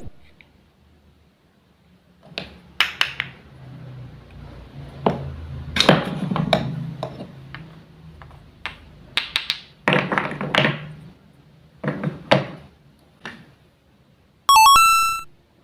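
Wooden toy fruits and vegetables being cut and handled with a toy knife: scattered wooden taps and clacks, in small clusters every second or two.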